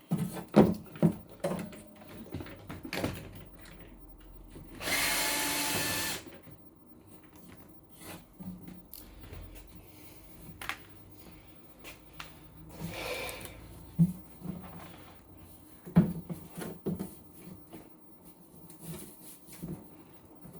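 A small electric power tool, likely a drill, runs for about a second, with a softer short run later, among scattered clicks and knocks of parts being handled during a plug repair.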